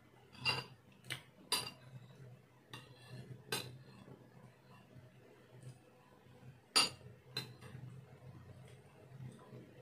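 A metal spoon clinking against dishes while someone eats, in about seven separate sharp clinks, the loudest a little before seven seconds in.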